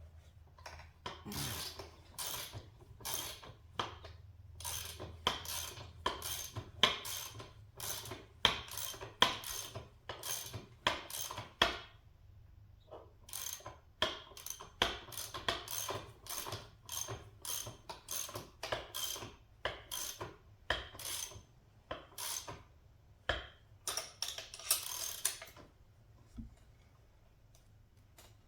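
Ratchet wrench clicking in repeated back-and-forth strokes, about two a second, tightening a nut on a pit bike's rear-wheel chain adjuster. It pauses briefly about halfway through and stops a couple of seconds before the end.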